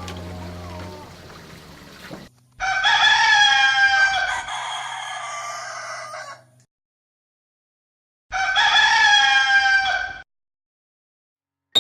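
Rooster crowing twice: a long crow of about four seconds, then after a gap of dead silence a shorter crow of about two seconds, each cut off abruptly.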